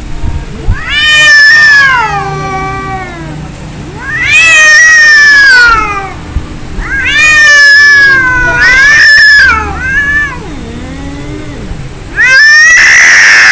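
Cats fighting: long, wavering yowls that rise and fall in pitch, in loud bouts separated by lower drawn-out growling moans. A harsh, noisy screech comes about a second before the end.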